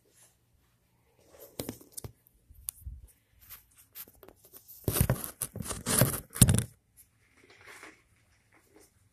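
Handling noise from a phone picked up and repositioned: rustling, scraping and knocks on its own microphone, loudest in a run of scrapes about five to seven seconds in.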